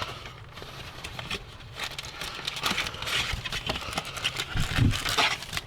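Handling sounds from a cardboard trading-card box being opened and its foil card packs taken out: rustling and scraping with many light clicks and a couple of louder knocks near the end.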